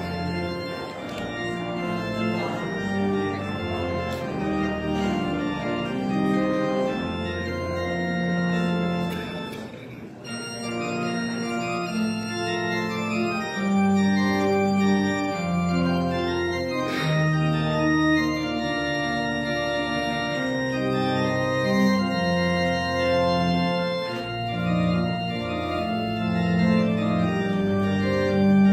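Church organ playing a prelude: held chords over a sustained bass line, the harmony changing every second or so, with a brief break between phrases about ten seconds in.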